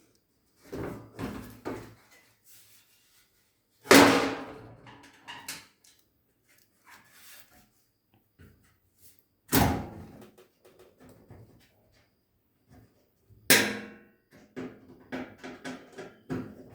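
Knocks and thuds from parts being handled while a washing machine's drain valve is taken out. Three loud knocks come about 4, 9.5 and 13.5 seconds in, each ringing briefly, with smaller clicks and taps between them.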